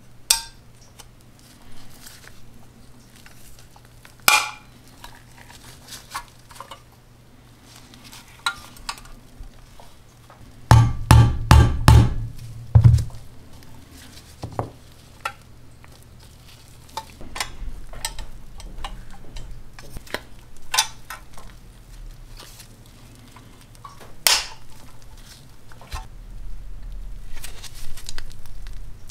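Small metal clicks, taps and scrapes from handling and assembling the parts of a pressed-steel Wyandotte toy dump truck, with a quick run of about five dull knocks near the middle.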